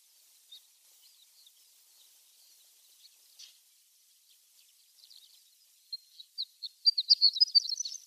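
Horned lark (shore lark) singing: faint, scattered high chirps, then about six seconds in a loud, rapid twittering phrase of high tinkling notes.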